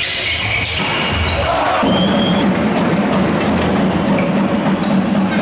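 Volleyball rally in a sports hall: the ball struck in play over continuous crowd noise with percussion from the stands.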